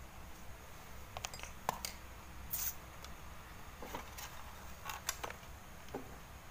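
Light clicks and taps of hand tools working on a TV circuit board while the B+ supply jumper is cut, with a short hiss about two and a half seconds in.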